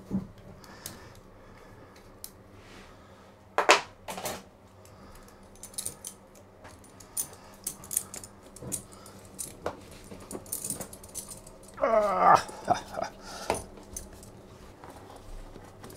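Heavy-duty metal hose clamps clinking, with scattered knocks, while a rubber exhaust hose is worked onto a boat engine. There is a louder double knock about four seconds in and a short squeaky pitched sound about twelve seconds in.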